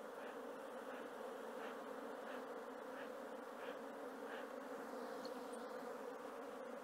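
Honeybees buzzing in large numbers around an opened hive, a steady droning hum.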